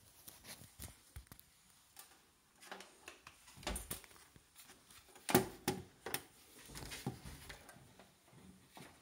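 Irregular clicks and knocks from a Bush alarm clock radio being handled and its controls worked, the loudest knock about five seconds in.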